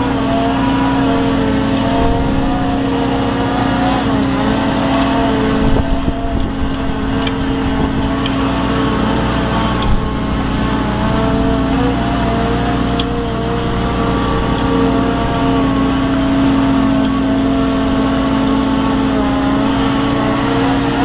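Excavator running steadily under load, powering a hydraulic dredge pump on its arm that is sucking up mud and throwing the slurry out: a constant engine drone with a steady hum, and a single sharp tick about ten seconds in.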